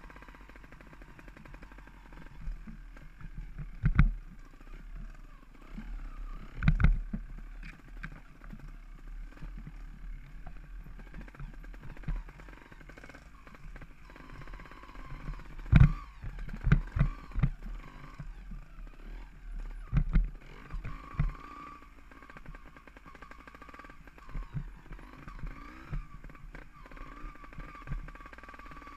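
A mountain bike rolling fast over a rocky, rutted singletrack: a steady rush of tyre and trail noise with sharp knocks and clatters as the wheels hit rocks and the bike jolts, clustered about 4 s, 7 s and 16–21 s in.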